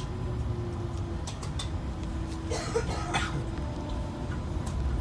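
Tram running on its rails, heard from inside: a steady low rumble with a faint motor hum and a few light clicks and rattles, and a brief burst of noise about halfway through.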